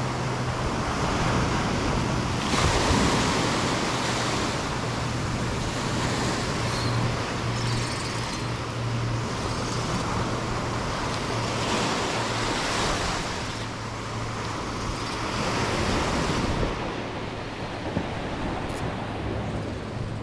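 Small surf waves breaking and washing up a sandy beach, the rush of water swelling and easing in several surges.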